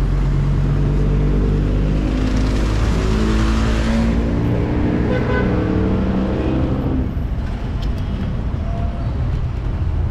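Road traffic: a motor vehicle's engine running close by, and a vehicle passing with its pitch sliding, loudest about three to four seconds in and fading after about seven seconds.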